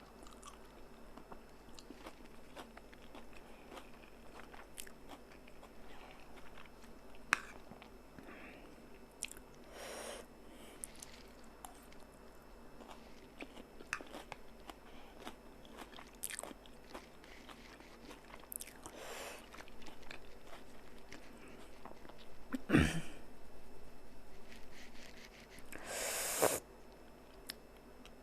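A person chewing and eating spicy chilli noodles up close, with soft mouth sounds and scattered small clicks. A few short breathy bursts and a sharp knock come late on.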